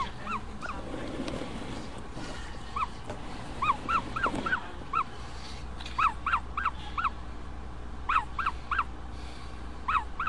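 Ostrich chick peeping from its shell as it hatches: short squeaks that rise and fall, coming singly and in quick runs of four to six. The squeaking is a good sign of life in an exhausted hatchling.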